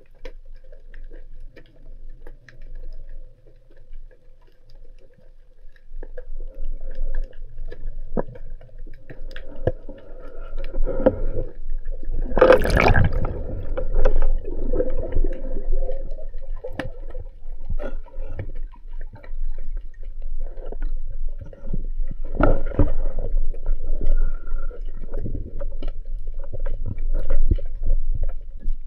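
Muffled underwater sound through a waterproof action camera's microphone: gurgling, sloshing water with scattered small clicks and knocks, and two louder rushes of gurgling, about twelve and twenty-two seconds in.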